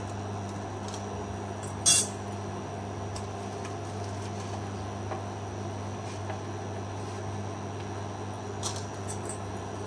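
A spoon stirring black cardamom seeds dry-roasting in a pan, with one sharp clink of the spoon against the pan about two seconds in and a few faint ticks near the end, over a steady low hum.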